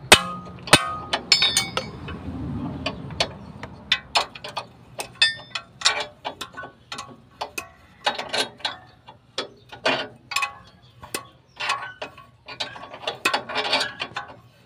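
A hammer striking metal twice at the start, then a hand ratchet wrench clicking in quick, uneven runs as a bolt on a removed steering knuckle and brake caliper assembly is turned.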